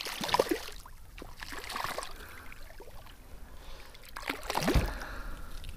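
Water splashing and sloshing as a hooked bonito thrashes at the surface beside a kayak, with scattered small clicks and a dull thump about four and a half seconds in.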